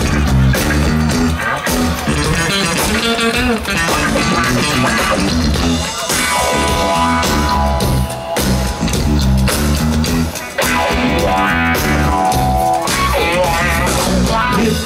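Rock band playing live: a bass-guitar riff over a drum beat with electric guitar, in an instrumental passage with no singing.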